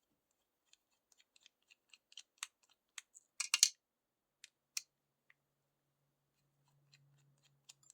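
Scattered small metallic clicks and ticks from a six-pin pin-tumbler lock and lockpicking tools being handled, with a brief louder cluster of clicks about three and a half seconds in.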